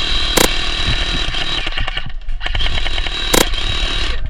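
Electric airsoft minigun firing a long sustained burst, its motor whine and rapid BB fire running together, with a brief let-up about halfway and a couple of sharp cracks.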